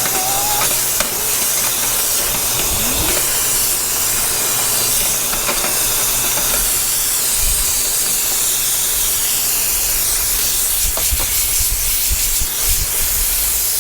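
Loud, steady rush of air through a dryer vent duct, a continuous hiss over a low motor hum.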